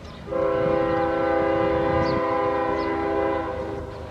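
Air horn of a CSX GE diesel locomotive sounding one long blast of several notes at once, about three seconds, starting a moment in.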